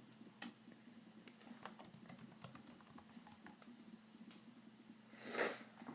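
Scattered clicks on a computer keyboard, tapped irregularly, over a low steady hum. A short soft hiss of noise comes near the end.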